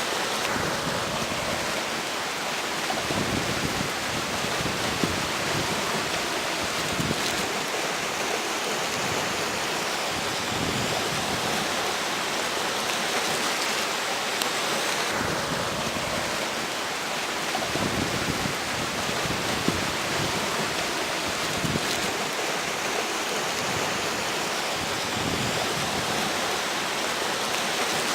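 River water rushing steadily, mixed with a strong wind blowing over the bank.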